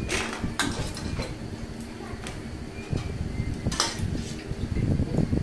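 Stainless steel bowls and a metal grater clinking and knocking as peeled sweet potatoes are washed and moved from bowl to bowl, with a few sharp clinks, one about four seconds in.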